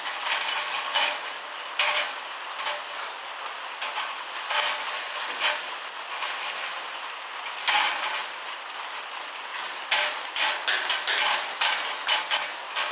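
Rainbow lorikeet making harsh, scratchy chatter: rapid, irregular clicking and rasping strokes, with no words among them.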